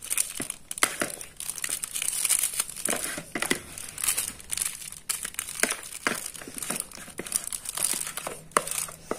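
Thin plastic bag crinkling as a spoon scrapes doughy ground-pellet bait mix from a plastic bowl into it, with many irregular small clicks and scrapes. This is the bag being filled before the bait is squeezed and boiled.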